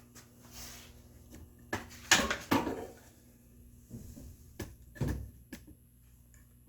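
Several irregular wooden knocks and clunks on a workbench, loudest as a pair about two seconds in and again around five seconds in.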